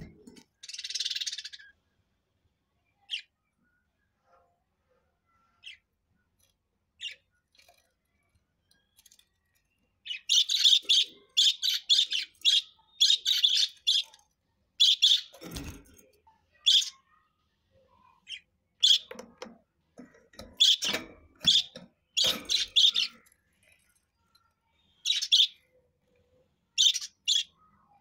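Budgerigars chirping: a few scattered short chirps at first, then dense rapid chirping from about ten seconds in, thinning to separate chirps near the end.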